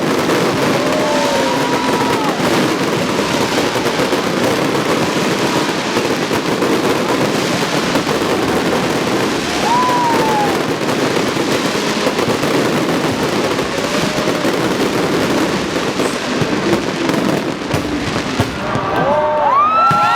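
Fireworks display: a dense, continuous barrage of bangs and crackling, with crowd voices swelling into cheering near the end.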